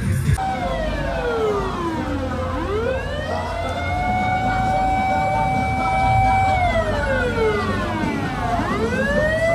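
Fire truck siren wailing. It sweeps down, rises and holds a steady high tone for a few seconds, then falls and rises again near the end.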